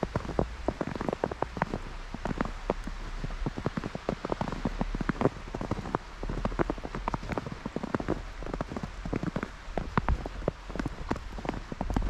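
Footsteps crunching through fresh snow: a dense, continuous run of crisp crackles as the snow packs under each step.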